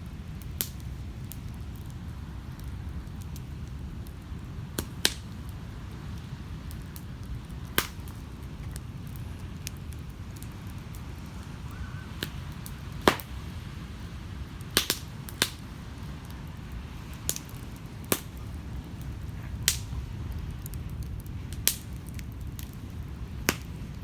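Wood campfire crackling, with sharp irregular pops every second or two, over a steady low rumble of surf.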